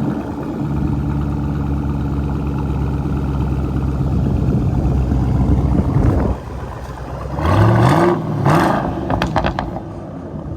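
2006 Ford Mustang GT's 4.6-litre V8 idling steadily through a Corsa Extreme axle-back exhaust, dropping quieter about six seconds in. Near the end it is blipped twice, the revs rising briefly each time.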